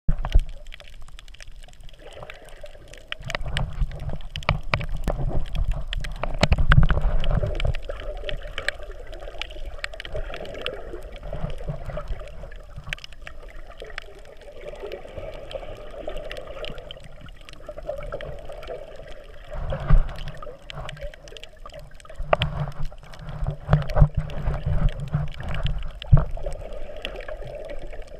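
Muffled underwater sound heard from inside a GoPro's waterproof housing: water sloshing and gurgling, with many scattered small clicks. Louder low rumbling surges come a few seconds in and again near the end.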